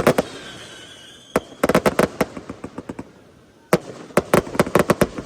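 Aerial fireworks bursting: clusters of sharp, rapid bangs and crackling come in volleys, with a lull around the middle before another volley a little under four seconds in.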